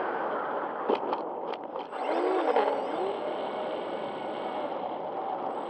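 Twin brushless motors (Lumenier 2206, 2350 kV) spinning 6x4 propellers, heard on board a foam RC plane with steady wind rush over the airframe. A few sharp clicks come about a second in. A pitched tone wavers up and down between about two and three seconds in, as the throttle changes.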